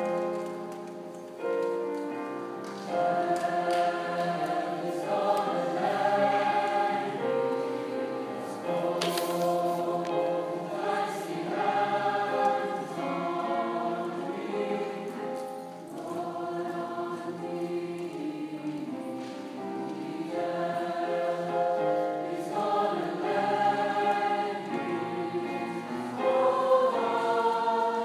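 Large mixed choir of men and women singing in harmony under a conductor, holding chords that change every second or so, growing louder about three seconds in.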